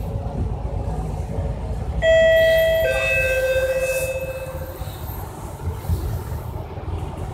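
Two-note descending 'ding-dong' chime of a bus stop-request bell about two seconds in, ringing out over about two seconds. Under it is the steady low rumble of the MAN double-deck bus's engine and tyres on the move.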